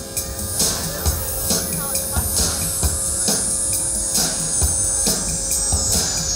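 Music with a steady drum beat, with a high tone sliding slowly down in pitch through the second half.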